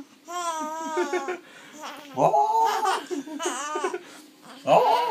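A 15-week-old baby laughing heartily in about four high-pitched bursts with short pauses between.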